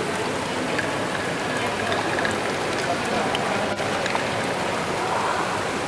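Continuous dense clatter of many small plastic balls rolling, dropping and being lifted through motorised LEGO Great Ball Contraption modules, a rain-like patter of countless tiny ticks.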